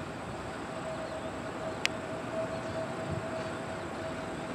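Airbus A320neo jet engines on landing approach, heard from a distance as a steady hum with a thin steady whine in it. A single sharp click comes about two seconds in.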